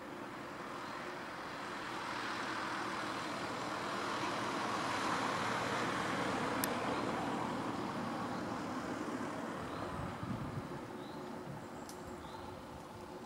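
A vehicle passing by: a steady rushing noise that slowly swells to a peak midway and then fades away. Faint short bird chirps come in near the end.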